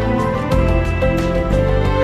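A Samsung Galaxy Note 7 ringtone playing: a melodic electronic tune over a bass line with a steady beat.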